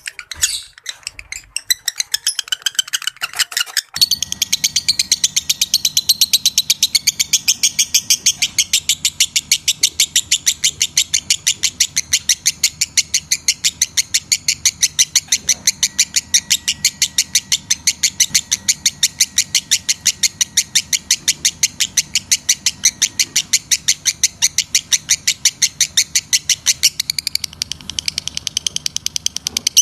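Lovebird giving a long, rapid chattering call: sharp high chirps repeated several times a second in an even run. The first few seconds are more irregular chirping, then about four seconds in the steady fast chatter takes over.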